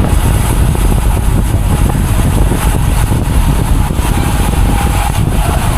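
Wind buffeting the microphone of a camera on a moving road bike: a loud, steady low rumble.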